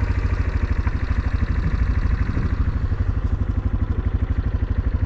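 A vehicle engine running steadily at low speed, with a rapid, even pulsing rumble.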